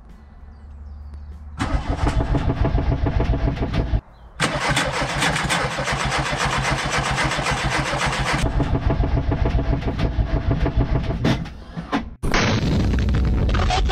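Starter motor cranking a freshly fitted 1.8T 20V four-cylinder engine with an even pulsing rhythm, in loud bursts with short breaks, on a first attempt to get it to show signs of life.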